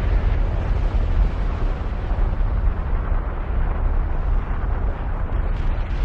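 Volcano eruption sound effect: a steady, deep rumbling noise.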